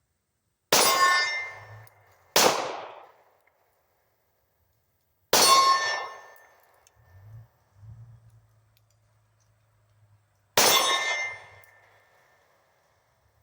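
Four pistol shots from a Glock 23 (.40 S&W), spaced a few seconds apart. Three are followed by the metallic ding of a steel target ringing out as the bullet hits. The second shot, about two seconds in, has no ring and sounds like a miss.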